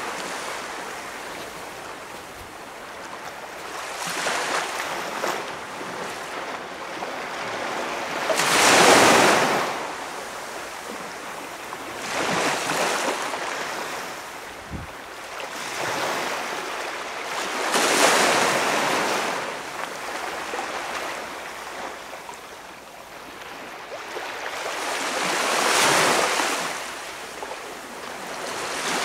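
Small waves breaking and washing up a calm beach, swelling and fading every few seconds, with a stronger break about a third of the way in, another near the middle and another near the end.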